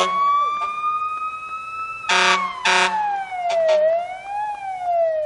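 Electronic siren-like tone sliding slowly up and then down in pitch, with two short bright chord hits about two seconds in.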